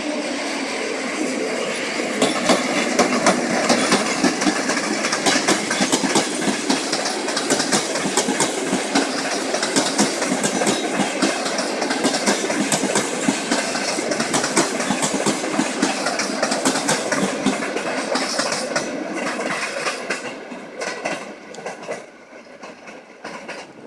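Passenger train moving over the tracks, its wheels clattering with rapid clicks over rail joints and points. The sound falls away about twenty seconds in.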